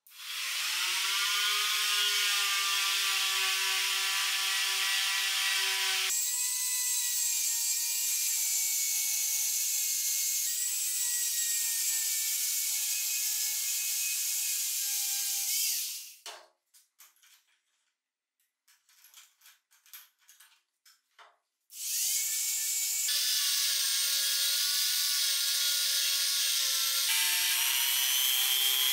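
Handheld rotary tool with a sanding drum spinning up and running at a steady high whine as it grinds rust off an iron bar clamped in a vise. About two-thirds of the way through it winds down and stops, leaving a few seconds of faint scattered clicks and scrapes, then starts again and runs on.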